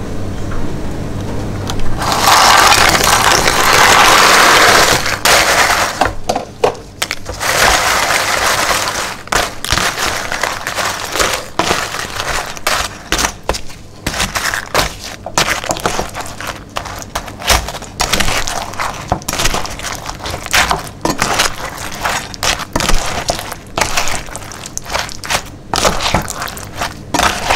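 Broken Marie biscuits tipped into a ceramic-coated pan of thick chocolate mixture, a loud continuous clatter for about three seconds. They are then folded in with a wooden spatula, the biscuits cracking and crunching irregularly against the pan.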